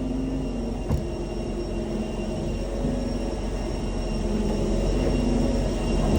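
Airbus A321 on the ground during push and start: a steady mechanical hum with a few held tones, slowly growing louder. A single sharp click about a second in.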